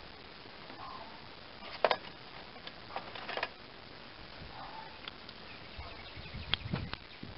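A few sharp clicks and knocks of small metal parts as a Briggs & Stratton carburetor is handled, turned over and set down on a towel-covered bench, with quiet gaps between them.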